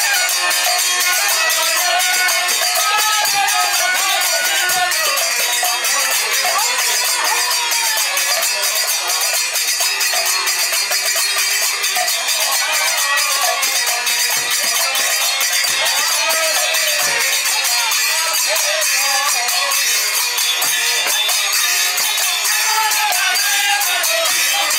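Instrumental kirtan music: a clarinet plays an ornamented, bending melody over the fast, steady jingle of small hand cymbals (kartal), with an occasional deep stroke from a khol barrel drum.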